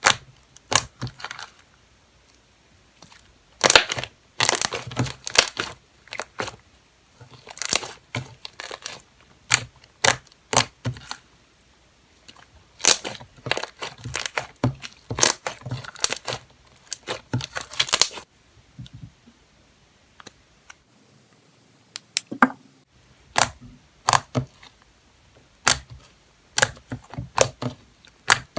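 Homemade glue slime being kneaded and stretched by hand: irregular sticky clicks and pops in clusters, easing off briefly about two-thirds of the way through.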